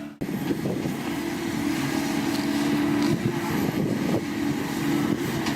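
Excavator's diesel engine running steadily, with a brief dropout just after the start and a few faint knocks later on.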